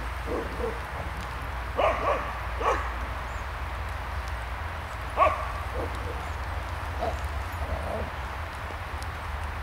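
English setter puppies giving several short barks and yips as they play, the loudest one about five seconds in, with quieter yips between. A steady low rumble runs underneath.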